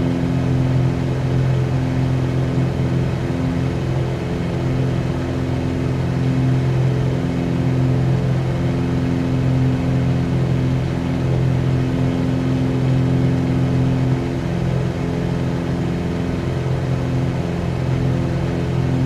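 Cessna 182Q's six-cylinder piston engine and propeller running at a steady, constant pitch, a continuous drone with no change in power.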